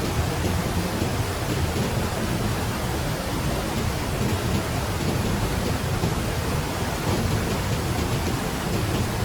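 Steady, unbroken rush of flowing water, heavy and deep.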